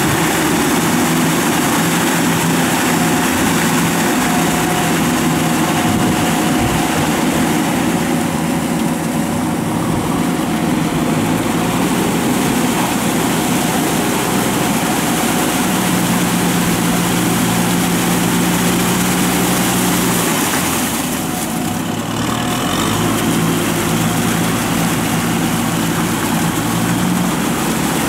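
Tractor diesel engine running steadily under load while the tractor drags a levelling board through a flooded rice paddy on steel cage wheels. The engine note shifts a little about two-thirds of the way through.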